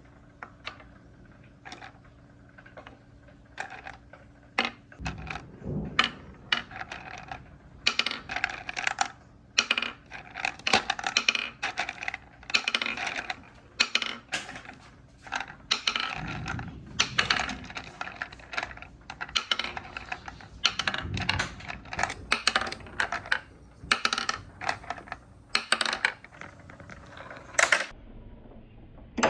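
Marbles running through a wooden marble run: a dense, irregular stream of clicks and clacks as they hit wooden track pieces and each other, with a low rolling rumble at times.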